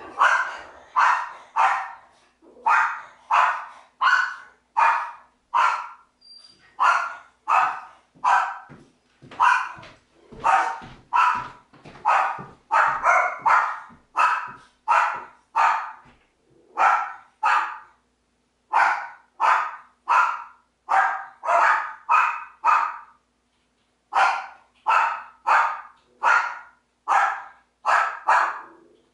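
Dog barking over and over in single short barks, about one to two a second, with two brief pauses in the second half.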